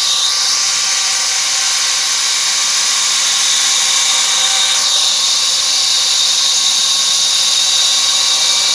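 Small bandsaw mill running, a loud steady high-pitched hiss and whine from the blade and drive.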